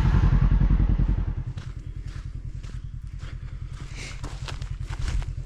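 Side-by-side engine idling with a steady low pulsing rumble that drops in level about a second in, under a run of sharp clicks and knocks as the zip-tie-jammed door is worked open.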